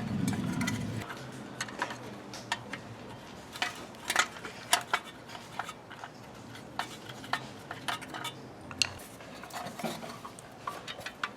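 Irregular light metallic clicks and taps from a lawn mower's recoil starter pulley and housing being handled while a new pull rope is threaded into it.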